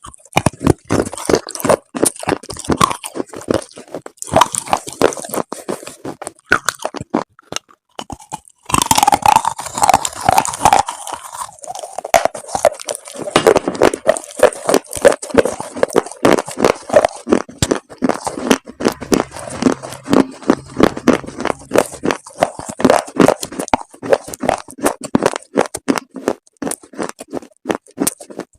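Chalk pieces coated in paste being bitten and chewed close to the microphone: a dense run of sharp crunches, with a short break about seven seconds in.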